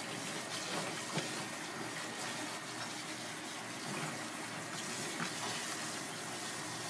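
Tap water running in a steady stream and splashing onto pieces of monkfish in a plastic basket as gloved hands rub and rinse them.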